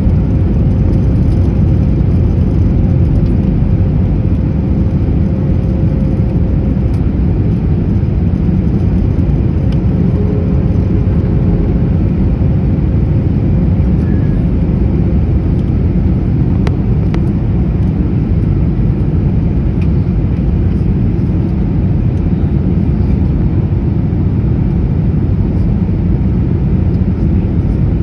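Steady low rumble of cabin noise inside an Airbus A321 airliner, from the engines and airflow, with a faint steady hum through the first several seconds.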